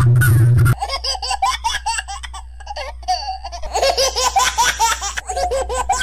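Toddler laughing in rapid repeated giggles, each rising and falling in pitch. Under a second in, a loud low hum beneath the first laugh cuts off suddenly, and the laughing goes on plainer and quieter.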